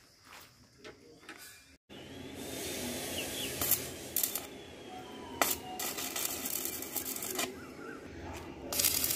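Stick welding on a mild-steel handrail post: the electrode crackles and hisses in several short bursts as the arc is struck to tack the post to its base plate, the longest burst in the second half. Birds chirp faintly.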